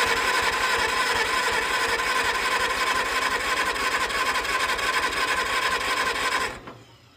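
Farmall A's electric starter cranking the four-cylinder engine with a steady whine and fast even pulses. It stops about six and a half seconds in. The engine turns over but does not catch, a sign the owner goes on to trace to fuel or the carburetor.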